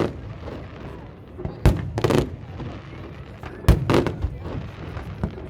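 Aerial fireworks shells bursting: four sharp, irregular bangs, two close pairs about two seconds apart, over a continuous background murmur.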